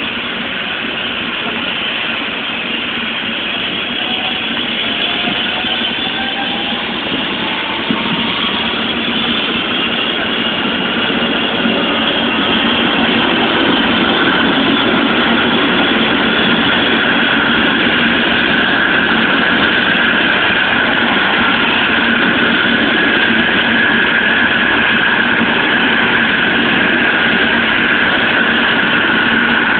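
Helicopter turbine engine spooling up on the ground before take-off: a whine that rises in pitch over the first several seconds, then settles into a steady high whine that grows louder about twelve seconds in.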